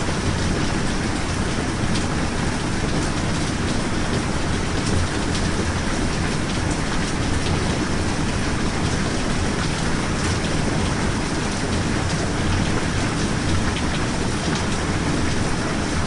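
Steady rain: a continuous even hiss with a strong low rumble underneath and faint scattered ticks of single drops.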